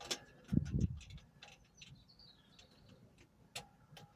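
Irregular clicks and knocks of hands working a stubborn clip on a fuel pipe, with a couple of dull thumps about half a second in.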